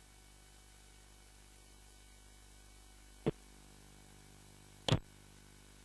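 Faint steady electrical hum and hiss, broken by two short sharp clicks about a second and a half apart, the second the louder.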